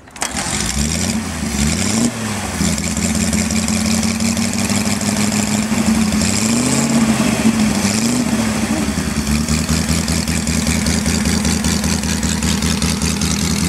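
Homemade 392 cc air-cooled four-stroke V8 motorcycle engine, built from two Honda CB350F four-cylinder engines, idling, with a few brief revs of the throttle about one to two seconds in and again around six to eight seconds in.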